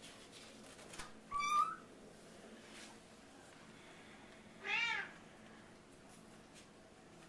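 Savannah cat meowing twice, about three seconds apart; the second meow rises and falls in pitch.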